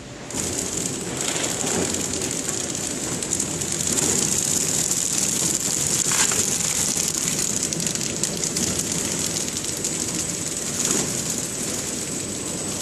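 Pillow-bag flow-pack packing machine running: a steady mechanical clatter with a constant high hiss, starting abruptly just after the beginning.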